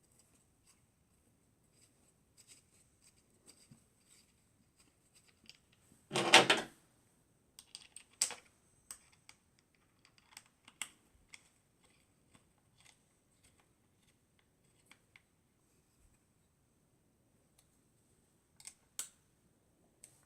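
Scattered small clicks and taps of metal rifle parts being handled while a Ruger 10/22 Takedown receiver is put back together and its screw driven home, with one louder clatter about six seconds in. A faint steady high whine sits underneath.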